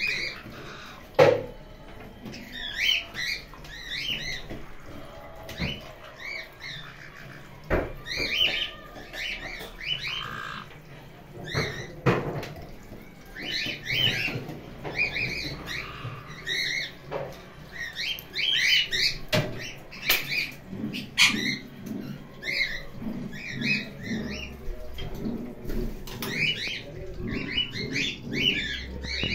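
Parrots giving short, high chirping calls in quick clusters every few seconds, with occasional sharp knocks and cracks of a caique's beak on a walnut shell, the loudest about a second in.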